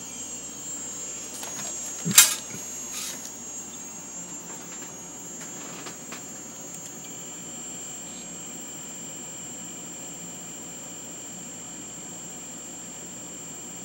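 Old 540 MB hard disk drive running open, with its lid off, while being read-scanned: a steady high whine over a low hum. A sharp knock comes about two seconds in, with a few lighter clicks around it.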